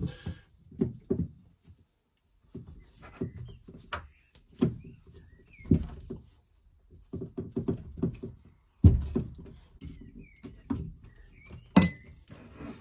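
Braided plastic hose being worked by hand onto a pump's inlet spigot, then a hose clip fitted: irregular rubbing, scraping and knocks against the mounting board, with a heavy thud about nine seconds in and a sharp click near the end.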